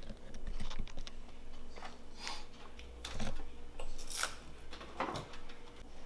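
Irregular clicks and taps with a few short scrapes, like hands working on hard plastic computer parts or a keyboard, over a faint steady hum.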